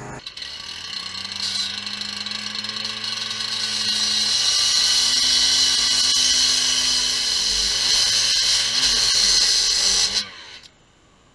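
Gas-powered cut-off saw cutting across a concrete spillway: the engine running hard under the loud grinding hiss of the blade in concrete. The sound cuts off about ten seconds in.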